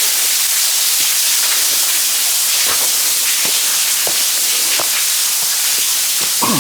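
Steady, loud hiss of rushing water, with scattered footsteps.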